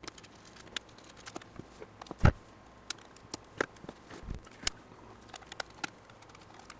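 Scattered small clicks and taps of screws and small parts being handled as a camera case is taken apart, with one louder knock a little over two seconds in.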